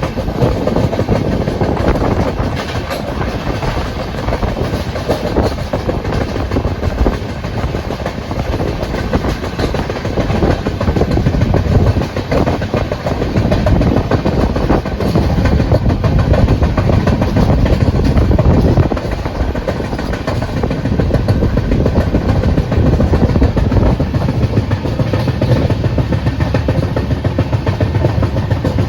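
Steady, loud rumble and dense rattling of a vehicle in motion.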